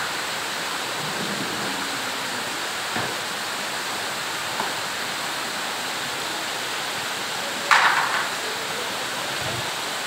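Heavy rain falling steadily on tree foliage, an even hiss throughout. A brief louder sound stands out about eight seconds in.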